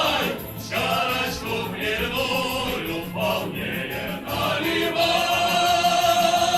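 A choir singing a song in phrases with short breaks, then holding one long final note from about five seconds in.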